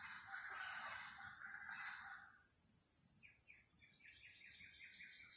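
Steady high-pitched drone of rainforest insects throughout, with a rooster's crow trailing off about two seconds in. From about three seconds a bird starts a quick run of short chirps, roughly four a second.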